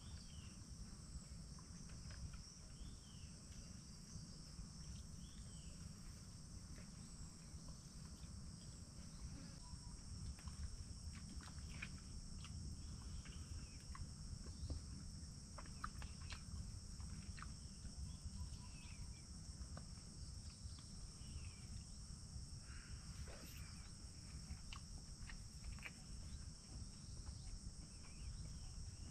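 Steady high-pitched drone of an insect chorus, with scattered light clicks of a metal spoon against a plate and a few brief chirps.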